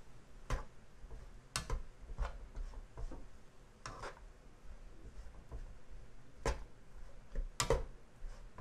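A stainless steel spoon stirring and tossing fried rice in a nonstick wok, knocking and scraping against the pan in irregular clicks about a second apart. The heat is off, so there is no sizzling.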